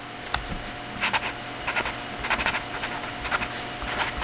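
A pen scratching out a run of short, irregular writing strokes, a pen that is not writing well.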